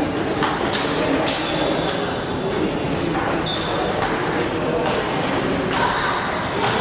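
Table tennis ball clicking off paddles and table in quick irregular rallies, with a few short high squeaks.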